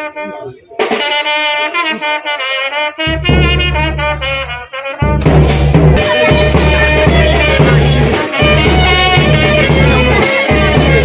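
Music: a melody of held notes, joined by a deep bass about three seconds in and by a fuller, louder band sound with a steady beat about five seconds in.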